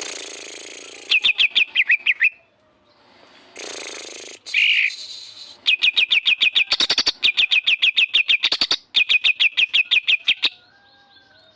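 Green leafbird (cucak ijo) singing a mimicked 'kapas tembak' filler: runs of rapid, sharp repeated notes, about eight a second, each run lasting one to two seconds, broken by short harsh hissing passages.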